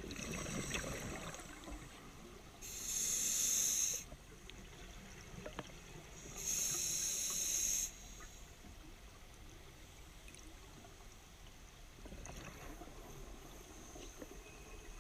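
Scuba diver breathing through a regulator underwater: two loud bursts of hissing and bubbling, each about a second and a half long and about four seconds apart, over a faint steady underwater hiss.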